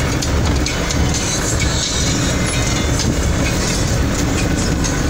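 Inside a moving vehicle on a rough dirt road: steady engine and tyre rumble, with the cab rattling and knocking over the bumps.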